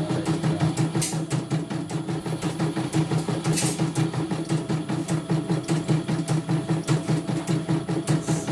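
CNY E900 computerised embroidery machine stitching a design on a test run after repair: a steady motor hum under a fast, even rhythm of needle strokes. There are two sharper clicks, about a second in and again about three and a half seconds in.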